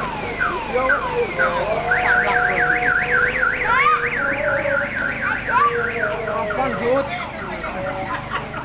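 An electronic alarm siren cycling through its tones. It starts with a string of falling chirps, then about two seconds in switches to a fast up-and-down warble, roughly four cycles a second, for several seconds before slower sweeps return near the end.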